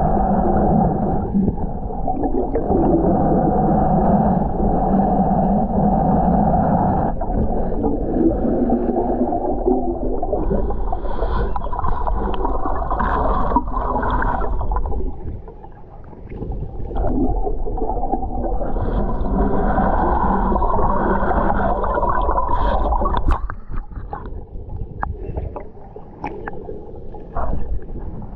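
Muffled underwater rushing and gurgling of lake water around a submerged action camera as the snorkeler moves through the weeds. Near the end it comes up toward the surface and turns into broken, irregular splashing.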